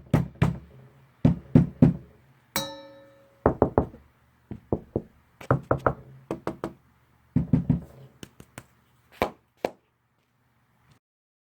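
Knocking on a door in quick groups of two to four raps with short pauses between them. One brief ringing tone that fades over about a second sounds once, about two and a half seconds in.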